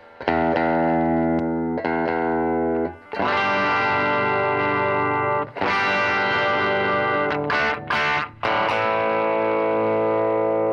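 Humbucker electric guitar played through a Marshall SV20C Studio Vintage combo, the amp's volume on full with the speaker level cut by an OX attenuator: overdriven chords strummed and left to ring. A few short choppy stabs come near the end, followed by one long sustained chord.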